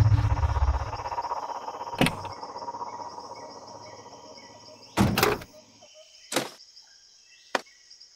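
A vehicle's engine fades away, leaving crickets chirping steadily. About four sharp knocks sound over the chirping, the loudest about five seconds in.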